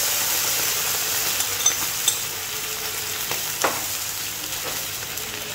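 Watery tomato sauce sizzling in a hot wok of onions, capsicum and tomato, a steady hiss that eases a little. A few short sharp ticks come about two seconds in, and a brief sliding sound follows a second and a half later.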